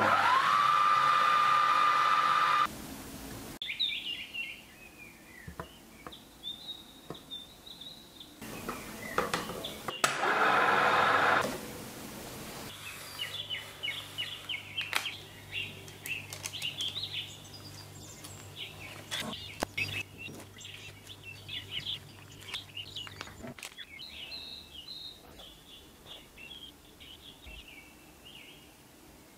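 Magimix food processor motor spinning up, its whine rising quickly and then holding steady, mixing cake batter for about two and a half seconds; it runs again briefly about ten seconds in. Afterwards, quieter light clicks and handling sounds with birds chirping in the background.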